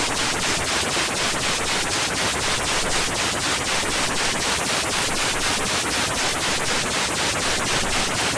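Steady hiss of broadcast static, as from a dead radio or TV channel, with a faint regular pulsing through it: the emergency broadcast signal has failed.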